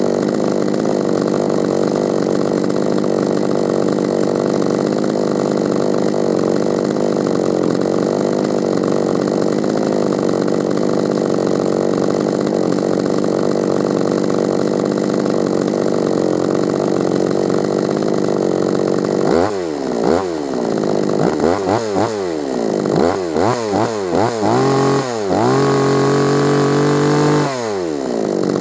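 Oregon 45 cc, 1.7 kW two-stroke chainsaw idling steadily, then revved up and down in a series of quick blips about two-thirds of the way in. It is held at high revs for a couple of seconds near the end, then drops back to idle.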